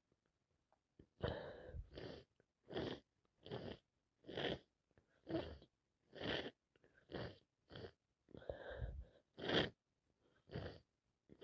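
A woman with a head cold sneezing in a long fit: about a dozen short sneezes in quick succession, less than a second apart, with silence between them.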